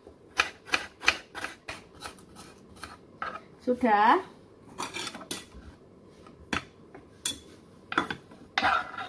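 Kitchen knife striking a cutting board while seasoning ingredients are sliced: a quick run of sharp chops, about four a second, for the first few seconds, then scattered single knocks.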